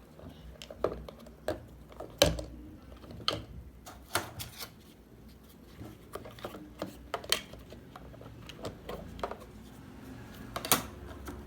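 Irregular sharp clicks and light knocks of hard plastic being handled, at uneven intervals, with the loudest knocks about two seconds in and near the end.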